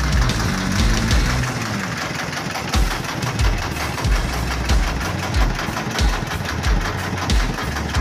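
A fishing boat's engine running at idle, with a low thump repeating about every two-thirds of a second.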